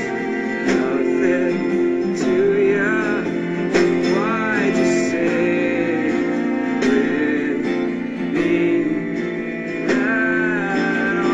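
Background music: a song with a singing voice over guitar accompaniment.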